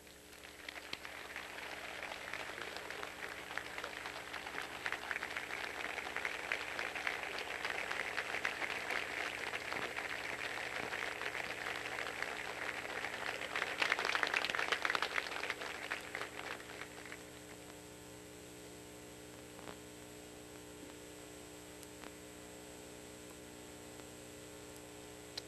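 Audience applauding: the clapping builds over the first few seconds, is loudest about fourteen seconds in, and dies away after about seventeen seconds, leaving a low steady mains hum.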